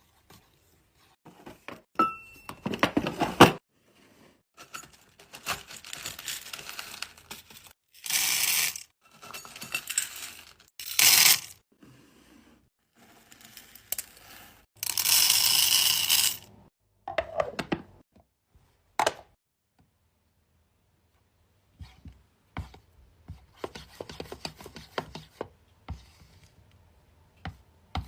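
Wax being handled close to the microphone: a series of irregular crackling and scraping bursts, some lasting about a second, then a quicker run of small clicks and taps near the end.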